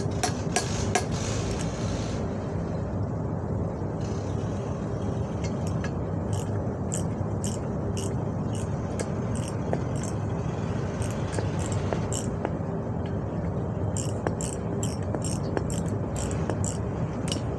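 Light metallic clinks and taps of hand tools and steering parts, coming irregularly in clusters, over a steady low engine hum.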